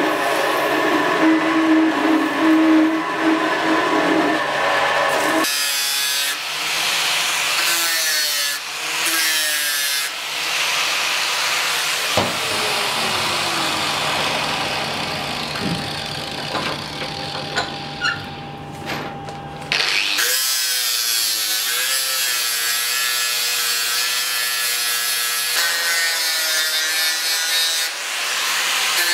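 Power grinding on steel. For about the first five seconds a belt grinder runs steadily against a metal part. After that an angle grinder works on a small steel part held in a vise, its pitch sagging and recovering as it bites in.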